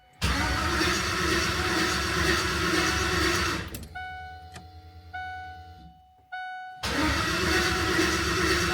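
LS V8 cranking on the starter without firing, in two spells with a pause of about three seconds between them in which a few short electronic tones sound. It turns over well but won't catch because the VATS anti-theft had not yet been deleted in the tune.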